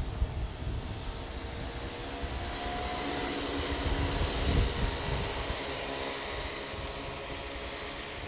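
Several small kart engines running on the track, the sound swelling as two karts pass close about four seconds in, then fading away.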